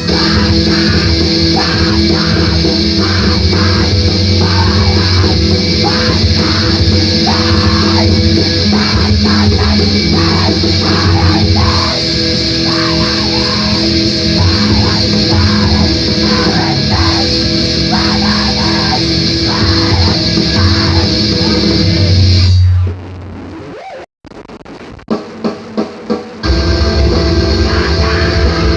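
Loud screamo/emoviolence band music, with distorted electric guitars and a drum kit playing hard. About three-quarters of the way through, the band drops out into a short, quiet break broken by a few separate hits. Then the full band crashes back in near the end.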